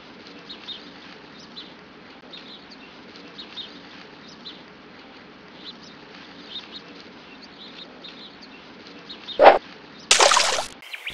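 Forest ambience: small birds chirping now and then over a steady soft hiss. Near the end there is one sharp, loud sound, followed by a brief loud rushing noise.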